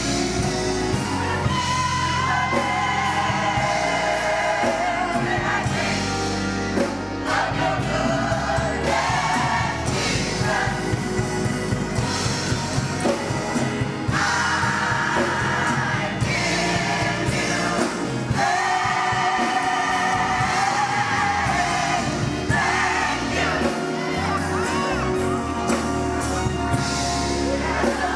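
Gospel choir singing with instrumental accompaniment, the sung melody lines held and moving over a steady bass.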